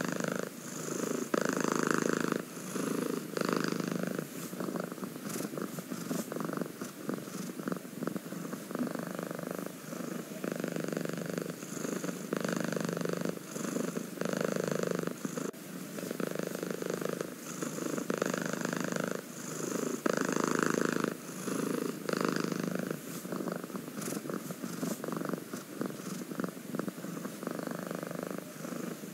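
Domestic cat purring close up, in steady swells about once a second as it breathes in and out, with occasional light clicks.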